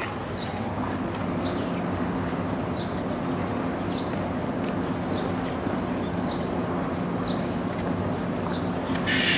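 A 189 series electric train standing at a platform with its equipment running: a steady low, multi-tone hum. A bird chirps about once a second, and a loud high sustained sound cuts in abruptly near the end.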